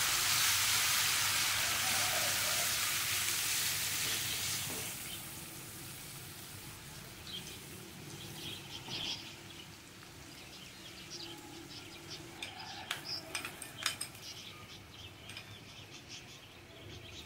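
Chopped garlic sizzling in hot oil in a nonstick wok as it is stirred with a silicone spatula. The sizzle is loud for the first few seconds, then dies down to a quieter hiss, with scattered light clicks and ticks in the second half.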